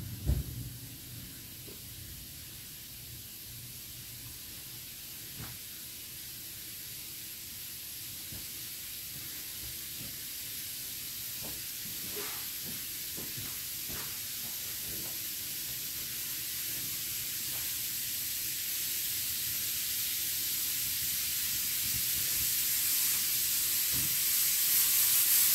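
Steady high hiss that grows slowly louder, with faint scattered clicks and rustles of clothes being hung on a metal drying rack.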